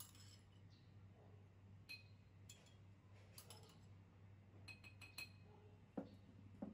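Faint scattered clinks of a metal spoon against a porcelain bowl and the rim of a glass jar. Near the end come two duller knocks as a small bowl is set down on a cloth-covered table.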